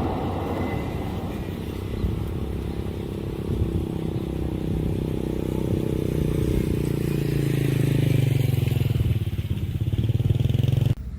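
A heavy vehicle engine running with a low, steady throb, growing louder over several seconds, then cut off suddenly near the end.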